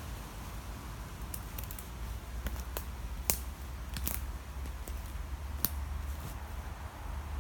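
Dry twigs and woodland debris cracking and snapping in scattered sharp clicks, the loudest about three seconds in, over a steady low rumble.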